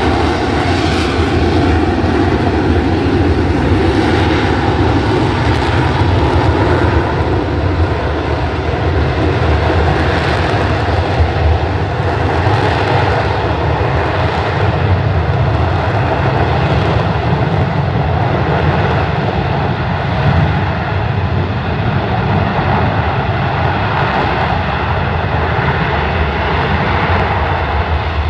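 F-35B Lightning II's F135 jet engine and shaft-driven lift fan running at high power in a hover: a loud, steady jet roar with a deep rumble and a held tone through it, the hiss growing slightly duller in the second half.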